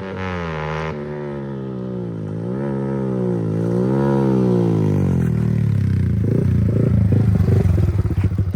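Yamaha R15 V4's single-cylinder engine through a loud aftermarket exhaust: the revs rise and fall twice, then it settles into a deep, loud pulsing burble near the end.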